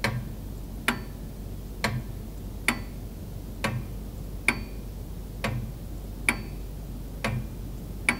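Ticking clock sound effect, a sharp tick about once a second with a soft low knock under each: a thinking-time cue for finding the mistake.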